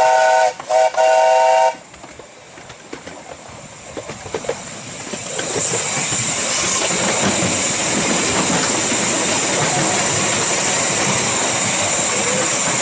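Whistle of a 7¼-inch gauge Fairlie steam locomotive sounding a chord of several tones, broken twice briefly and stopping about two seconds in. After a quieter stretch of the train running, a loud steady rushing of steam and wheels inside a tunnel sets in about five seconds in.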